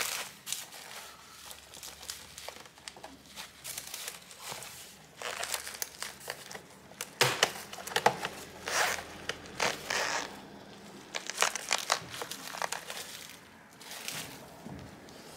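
Plastic bottom cover of an MSI Vector 16 HX laptop being pried off by hand: irregular crackles and snaps as its clips let go, louder and more frequent in the second half.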